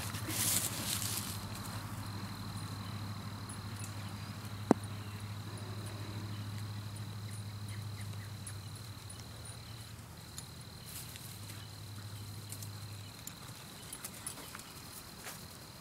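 A steady high insect trill over a low hum, with the soft hoofbeats of a horse cantering on grass, heaviest in the first second or so. One sharp click about five seconds in; the hum stops near the end.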